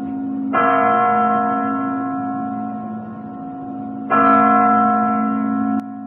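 A large church bell struck twice by its clapper, about three and a half seconds apart. Each stroke sets off a ring of several steady tones that fades slowly. The ring drops off abruptly near the end.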